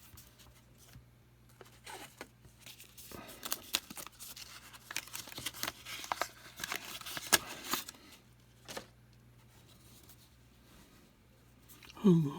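Wrapper of a trading-card pack being torn open and crinkled, with the cards handled: a run of sharp crackles and rustles for several seconds that then die away. A man's voice briefly near the end.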